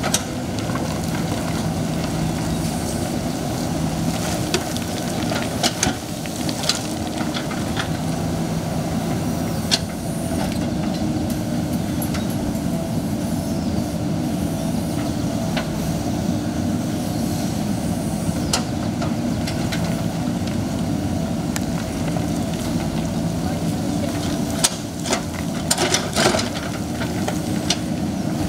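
Excavator's diesel engine running steadily under working load, with scattered sharp knocks and clatters of the bucket and rock, several together near the end.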